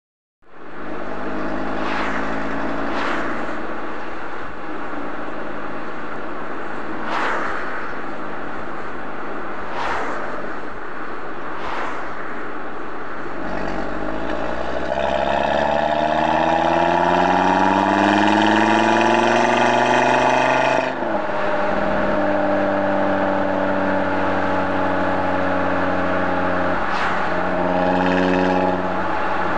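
Audi TT RS's 2.5-litre turbocharged inline-five running through its stock sport exhaust with the valves open, heard at the tailpipes while driving. It cruises at a steady drone, then from about halfway climbs in one long rising pull under acceleration, which cuts off sharply back to steady cruising. A few brief sharp cracks break in during the first half.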